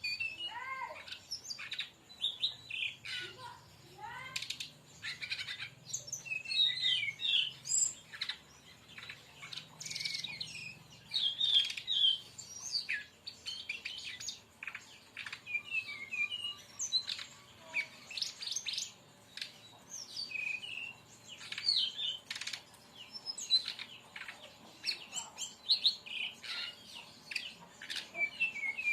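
Brown-chested jungle flycatcher (sikatan rimba dada coklat) singing a rapid, continuous string of sharp high chirps and short trills, with a few falling sweeps in the first few seconds.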